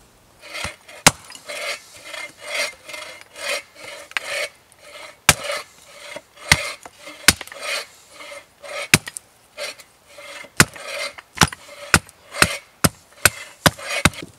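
A hatchet blade working a thin wooden slat: repeated scraping strokes about two a second, with sharp cracks and knocks of wood between them that come more often near the end.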